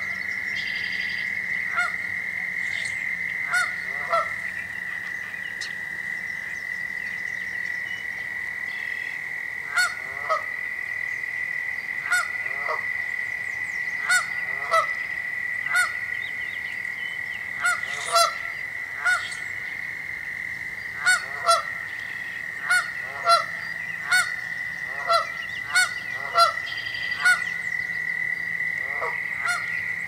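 Canada goose giving repeated short honks, each falling in pitch, often in quick pairs, with a gap of several seconds before the calling resumes. These are danger calls. A steady high-pitched tone runs underneath.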